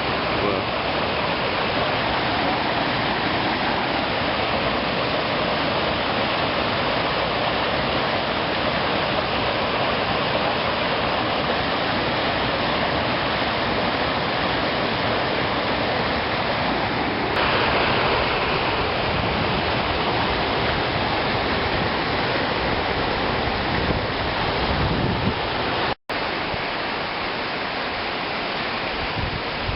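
Steady rushing of flowing water from a stream or waterfall. The sound shifts abruptly about two-thirds of the way in and drops out for an instant a little later.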